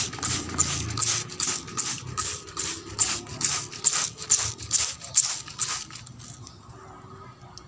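Hand trigger spray bottle squirting liquid onto grapevine leaves in quick repeated pumps, about two to three short hissing sprays a second, stopping about six seconds in.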